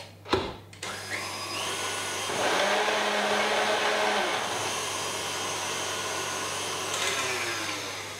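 Electric stand mixer whipping cream with its wire whisk: after a sharp click, the motor starts about a second in with a rising whine, runs steadily, then slows and stops near the end.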